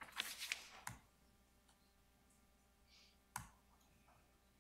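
A few sharp clicks in the first second and one more about three and a half seconds in, against a quiet room: clicking at the lectern computer as the slide animations are advanced.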